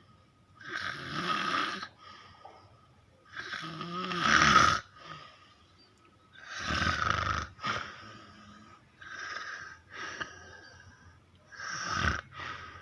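A person snoring heavily in long, noisy snores, several seconds apart, with shorter, softer breaths between. The loudest snore comes about four seconds in.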